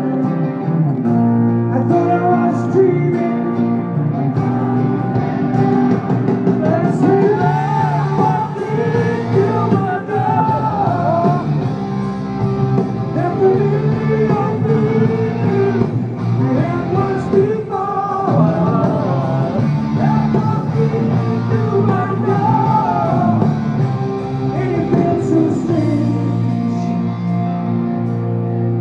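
A rock band playing live with guitars, drums and singing, heard from within the audience in a large hall.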